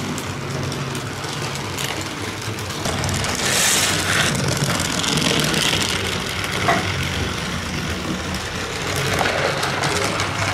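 Battery-powered toy train's small electric motor running with a steady low hum as it travels around plastic track, with a brief hiss of noise about three and a half seconds in.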